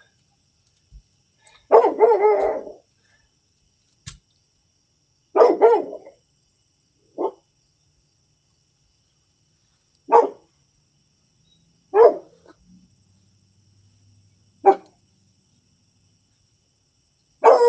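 A dog barking in separate barks, about seven in all, spaced one to three seconds apart with quiet between. It is picked up by a video doorbell's microphone.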